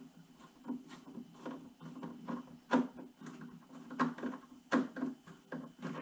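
Small screws being driven by hand into saddlebag latch hardware: a run of irregular clicks and ticks from the tool and metal parts, about two a second.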